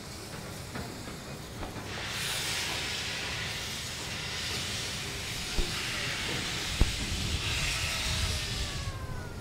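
Steam locomotive C56 160 blowing steam from its open cylinder drain cocks as it starts away: a loud, even hiss that starts about two seconds in and cuts off near the end. Two short sharp clanks come in the middle.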